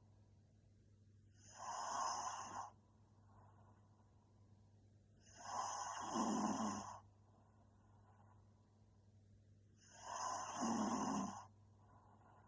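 A young woman snoring in her sleep: three loud snores, each about a second long and about four seconds apart, with softer breaths between them. A steady low hum lies underneath.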